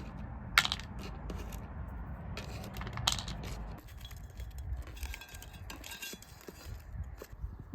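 Dried black soybeans clicking and rattling against a hard surface as they are handled, with a couple of sharper clacks and runs of small clicks.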